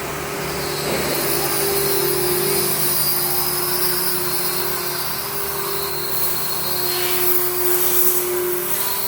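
Router spindle on a KUKA robot arm cutting ABS plastic parts, a steady high whine over a hiss.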